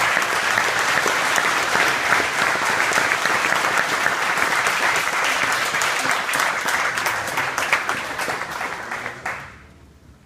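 Applause from a room full of people clapping, holding steady, then tapering off and dying away near the end.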